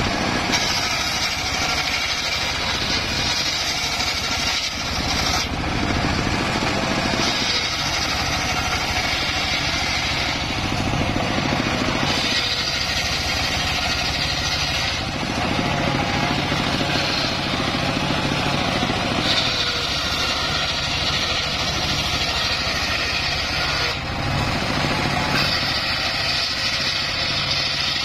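Engine-driven homemade circular sawbench running steadily while its large blade rips acacia planks, the whine of the cut rising over the engine drone in about five passes of a few seconds each.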